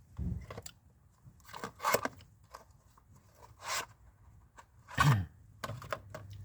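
Handling noise from a boxed replacement part and its packaging: a run of short rustles, crinkles and scrapes, the loudest about two seconds in, near four seconds and about five seconds in.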